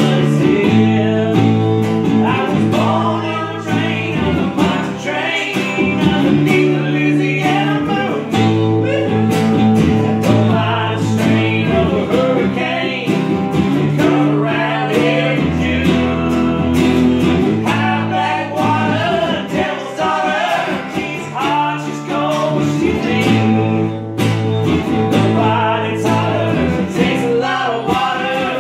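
Acoustic guitars strummed together in a country-style rhythm while a man sings over them.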